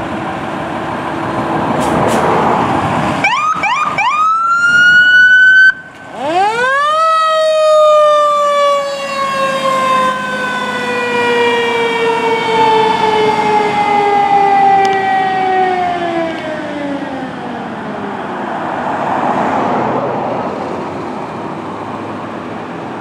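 Fire engine's siren winding up in a rising wail about three seconds in, breaking off briefly, then winding up again and falling slowly in pitch for about ten seconds before dying away. The truck's engine runs under it as the engine pulls away.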